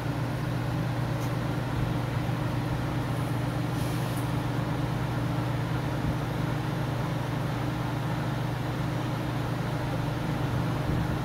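Lincoln conveyor pizza oven running, a steady low hum from its air-impingement blower fans.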